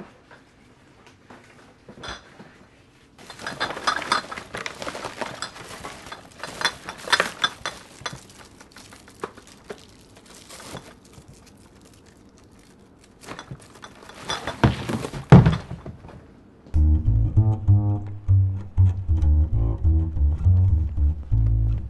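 Plastic kitchen trash bag rustling and crinkling as it is rummaged through and its drawstring is pulled tight, with a loud thump just before the music comes in. Then music with a low plucked bass line.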